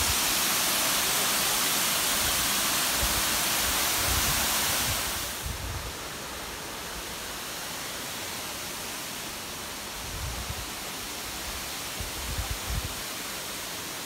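Steady rushing hiss of a tall waterfall's falling water. It drops noticeably about five seconds in and carries on at the lower level, with a few low bumps in the second half.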